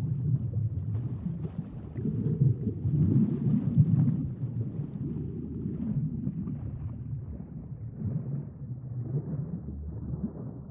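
Low, rumbling underwater water noise that swells and fades irregularly, with faint crackles on top.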